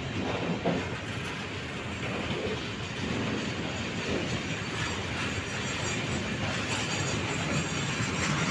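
Freight train of rail tank wagons rolling past at close range: a steady rumble of steel wheels on the rails, with a few wheel clicks early on and growing slightly louder toward the end.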